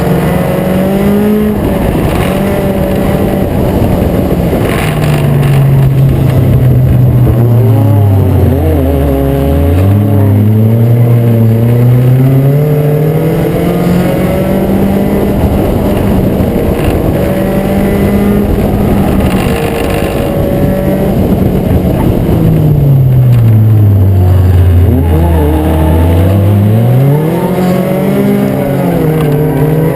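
Acura Integra race car's four-cylinder engine running hard at high revs. Twice its pitch falls steeply and climbs back up, the way it would when lifting into a turn and then accelerating out again. Other race cars' engines can be heard underneath.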